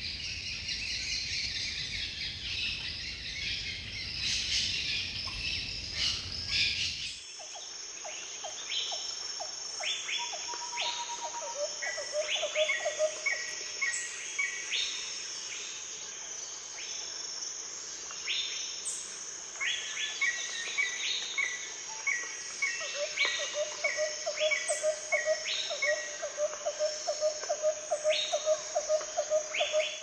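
Tropical forest ambience of many birds calling over a steady high insect drone: sharp downward-swept calls, quick runs of chirps and a fast pulsing trill. About seven seconds in, a denser, hissier chorus with a low rumble changes abruptly to this clearer mix.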